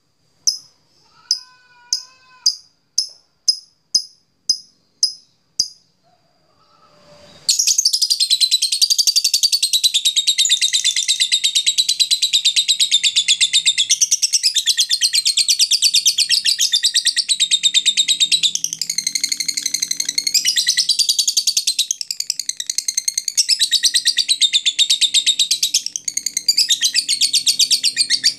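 Lovebird calling: a run of sharp single chips about two a second, then from about seven seconds in a long, unbroken, rapid chattering trill, the drawn-out 'ngekek' call of a male lovebird.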